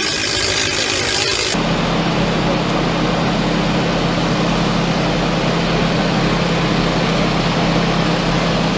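An engine running steadily with a constant low hum under a wash of noise. It starts abruptly about a second and a half in, cutting off a brighter hiss.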